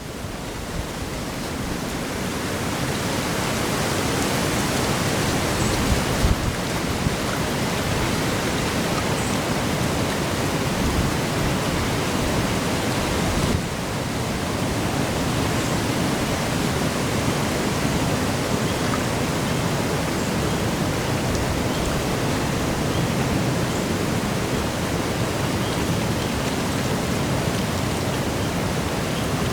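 Steady rushing noise of a strong wind, about 20 miles an hour, blowing through the trees. The level dips briefly about halfway through.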